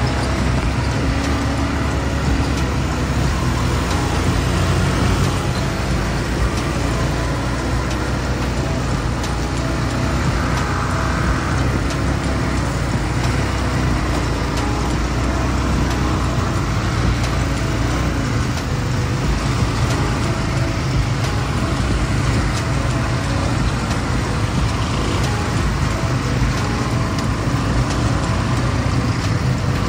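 Quad-bike (ATV) engines running steadily as a line of ATVs rides along at an even pace.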